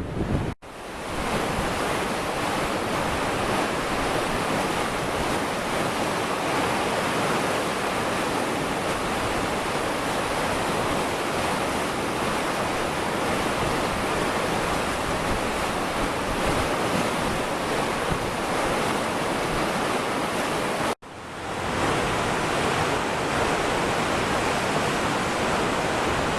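Steady rushing of floodwater, with wind buffeting the microphone. The sound drops out suddenly twice, about half a second in and again near 21 seconds, and swells back each time.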